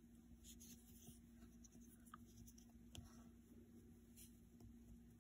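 Near silence: faint rustling of yarn and a few small ticks as a metal crochet hook is worked through the stitches to tie off the end, over a low steady hum.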